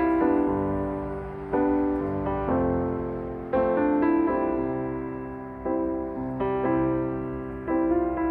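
Slow, gentle background piano music: chords struck about every one to two seconds, each fading away before the next.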